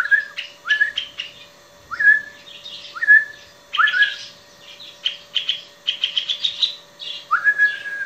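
Hand-reared young nuthatches calling: short whistled notes that rise and then hold, repeated about once a second, mixed with quick runs of higher chirps near the middle; the early stage of their song.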